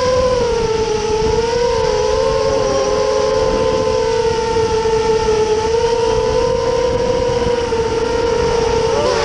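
Electric motors and propellers of an FPV drone whining at a near-steady pitch that wavers slightly and wobbles briefly near the end, with wind rush over the microphone.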